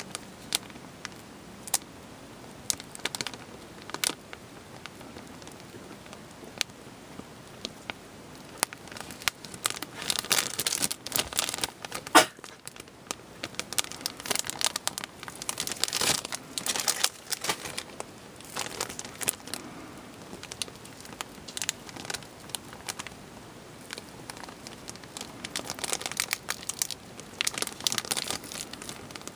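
Thin clear plastic bags crinkling as they are handled, with model-kit plastic runners inside. The crinkling comes in irregular bursts and quieter stretches, and there is one sharp click about twelve seconds in.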